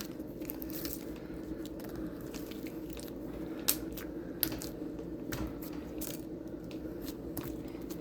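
Slime being handled, with faint scattered clicks and soft squishes over a steady low background hum.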